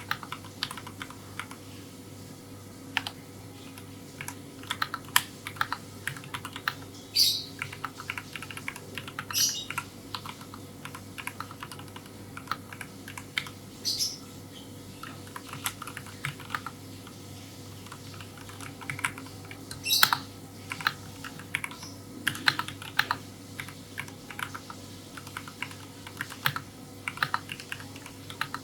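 Typing on a Fantech Atom Pro 83 mechanical keyboard fitted with red linear switches: a quick, irregular run of keystroke clacks, with a handful of louder, slightly longer strokes among them.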